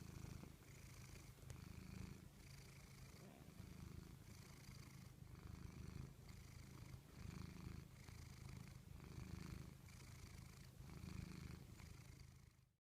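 Domestic cat purring close up: a faint, low rumble that swells and eases with each breath in and out, about every two-thirds of a second. The sound cuts off abruptly just before the end.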